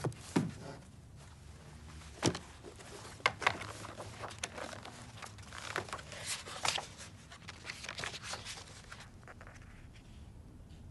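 Paper rustling and pages turning as a large book is handled and leafed through, with a few knocks and sharp page flicks. A low knock comes right at the start and another about two seconds in, as the book is taken from the shelf.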